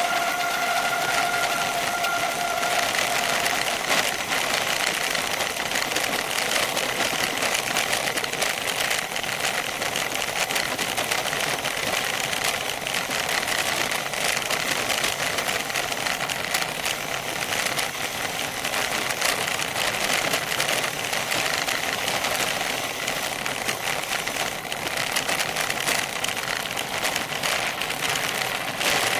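Bicycle descending a loose gravel road: a steady crackling rattle of tyres on gravel and the bike shaking, picked up by a frame-mounted rear camera. A brief high two-tone squeal sounds in the first couple of seconds.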